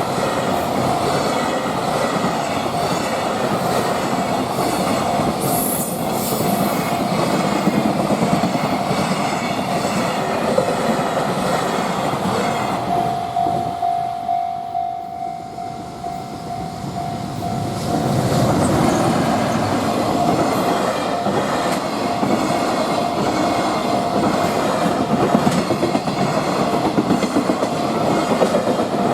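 Freight train passing close by, its wheels clattering over the rail joints with some squeal. A steady ringing tone, likely the level-crossing warning bell, sounds throughout. The train noise drops for a few seconds in the middle, then rises again as more of the train comes through.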